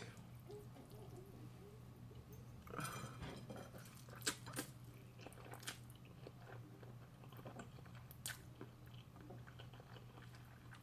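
A person chewing food close to the microphone, with scattered short crunches and mouth clicks over a faint steady low hum.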